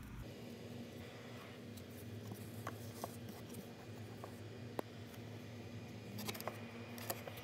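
Steady low hum with a few light clicks and taps, spread apart, of a hand handling a small scale-model camper and pressing its seat cushions into place.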